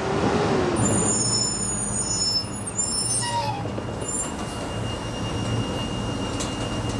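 Steady engine rumble and road noise from motor vehicles, with a short falling squeal about three seconds in.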